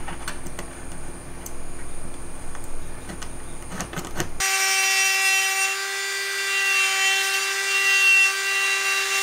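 Light scratching and ticking of a small pointed hand tool working on a wooden lure body. About halfway through it gives way abruptly to a Ryobi rotary tool running at a steady high pitch, its bit working into the driftwood.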